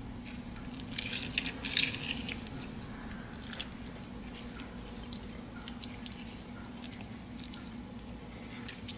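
Lemon half squeezed by hand, the rind and pulp crackling wetly and the juice dripping onto raw seasoned chicken. The loudest burst of crackling comes about a second in, followed by scattered drips and squeezes.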